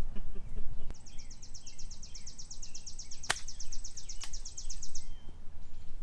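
A golf club striking the ball: one sharp crack about three seconds in. Behind it a bird sings a high, fast trill of about nine notes a second for some four seconds, with lower falling bird chirps.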